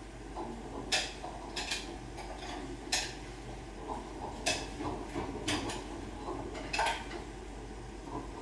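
Kitchen clatter: dishes, pots and utensils clinking and knocking at irregular intervals over a steady low hum.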